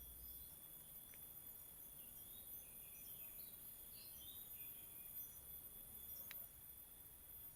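Faint outdoor insect chorus: a steady high-pitched insect trill, with a cluster of short high chirps in the middle and two faint clicks.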